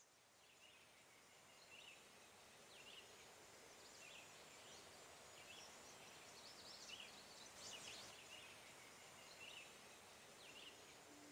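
Faint outdoor ambience fading in: a steady hiss with small bird chirps about once a second.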